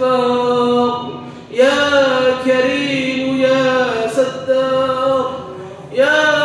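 A man chanting an Arabic supplication (dua) in long, drawn-out melodic phrases. His voice holds and bends each note, with short breaths between the phrases.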